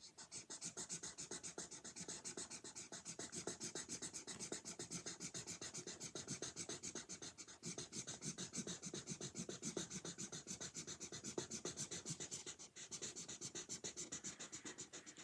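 Rapid back-and-forth coloring strokes on paper, a regular scratching at about six strokes a second that stops abruptly at the end.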